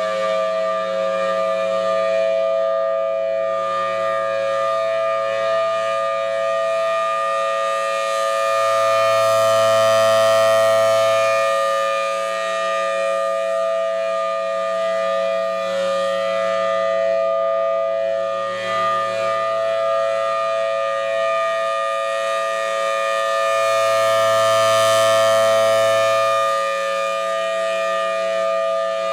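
Federal Signal Thunderbolt 1000TB outdoor warning siren sounding a steady tone at a held pitch. As its rotating head sweeps around, the sound swells louder twice, about 15 seconds apart, and then falls back.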